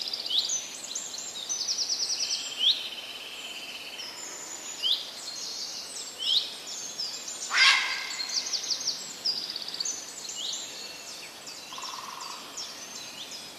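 Forest songbirds chirping and trilling together: many short high-pitched upswept notes and rapid trills overlap throughout. One louder, sharp call stands out about halfway through.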